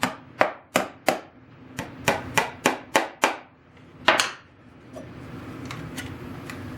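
Small hammer tapping on a wooden machinist chest to fix a mirror in place: about a dozen quick, light taps at roughly three a second, stopping a little past four seconds in, with a faint steady hum left behind.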